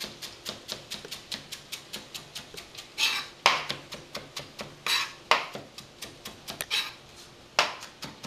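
Chef's knife finely chopping fresh parsley on a plastic cutting board: a quick, even run of chops at about four to five a second, then from about three seconds in several louder, longer strokes among the chops.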